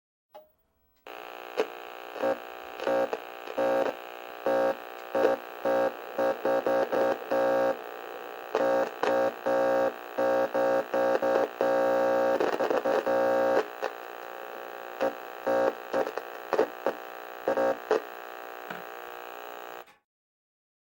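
Electronic static effect: a steady, pitched electrical buzz broken by irregular, stuttering louder bursts. It starts about a second in and cuts off suddenly just before the end.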